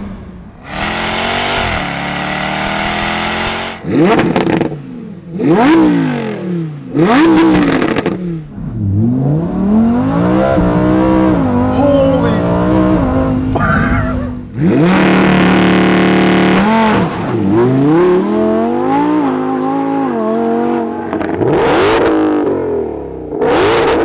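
Exhausts of a Jaguar F-Type SVR's supercharged V8 and then a Lamborghini Huracán EVO's V10, heard from inside the cabin, revving and accelerating hard. The engine note sweeps up and drops off again and again, with several quick throttle blips.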